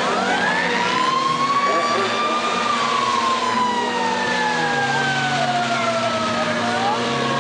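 Four-cylinder demolition derby cars running, with a high whine that climbs sharply at the start and then slowly falls over several seconds, and a second whine sliding down partway through.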